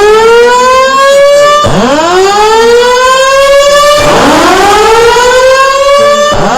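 Fire alarm voice-evacuation speaker sounding its loud whoop tone between spoken announcements: a rising sweep that starts over from low pitch about every two and a half seconds, signalling the building to evacuate.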